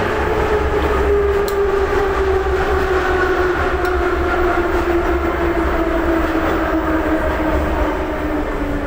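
Metro train slowing into a station, heard from inside the car: a steady low rumble with a motor whine that falls slowly in pitch as the train decelerates.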